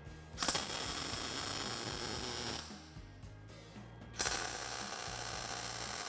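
MIG welder laying two tack welds on a weld-on brake caliper bracket against a steel axle tube: two bursts of arc crackle, each about two seconds long, striking sharply about half a second in and again about four seconds in.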